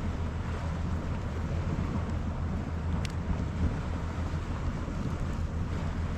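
Wind buffeting the microphone as a steady low rumble, with one small sharp click about three seconds in.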